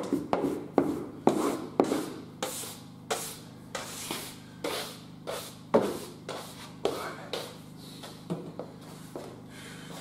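Broom sweeping sawdust across a laminate floor in short repeated strokes, about two a second at first, spacing out and fading near the end.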